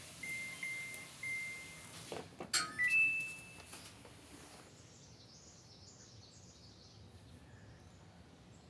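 Samsung front-loading washing machine's control panel beeping: short high beeps at one pitch, then a few clicks and a short rising three-note tone about two and a half seconds in.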